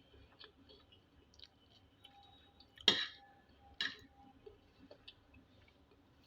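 A person coughing twice, about a second apart, with faint small clicks of eating around it.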